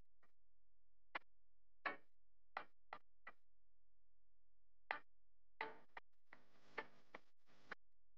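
Scattered light clicks and taps of an Arduino Nano board and its male header pins knocking together and against a plastic cutting mat as the pins are fitted into the board. Near the end comes about a second of closer, rattling clicks.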